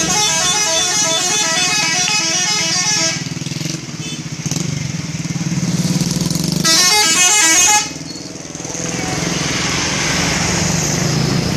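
Bus 'telolet' multi-tone musical horn playing a long run of quick, stepping melodic notes for about three seconds, then another short burst about seven seconds in. A vehicle engine runs steadily underneath.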